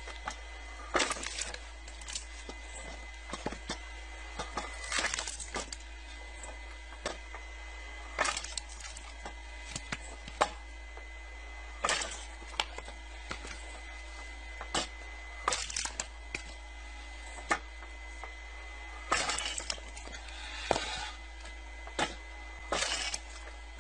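Homemade log splitter cracking short wooden rounds apart, a sharp crack of splitting wood every one to three seconds, over a steady low hum.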